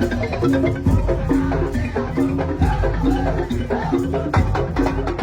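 Madurese tong-tong ensemble playing: wooden kentongan slit drums clacking in a fast steady rhythm, with a repeated melodic line and low drum beats.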